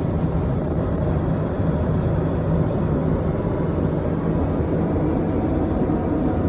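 Steady cabin noise of a Boeing 767-400ER in flight: a constant low rumble of jet engines and airflow with a faint steady hum.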